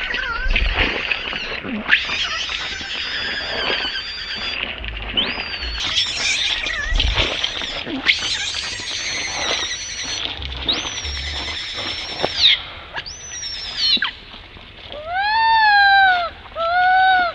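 Baby long-tailed macaque screaming in distress in long, harsh, high-pitched cries. Near the end it changes to a few clear, arching whistle-like coos.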